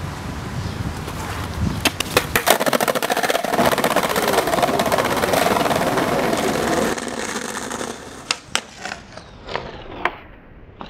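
Skateboard wheels rolling over brick pavers, a loud, rapid clatter over the joints that starts with a couple of sharp clacks about two seconds in. Near the end it goes quieter, with a few separate sharp clacks of the board popping and striking a concrete ledge.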